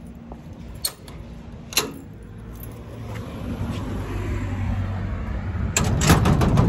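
Two sharp clicks, then a low steady hum building up, and a bunch of keys jangling loudly near the end.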